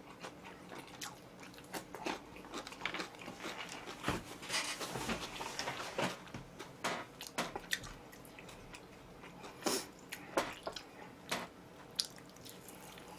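Close-up chewing and biting of oven-roasted chicken, with many short wet mouth clicks and smacks. The chewing is densest about four to six seconds in.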